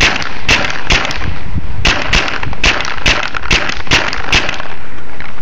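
Tippmann A5 paintball marker firing a rapid string of about ten shots, two or three a second, each a sharp pop; the firing stops near the end.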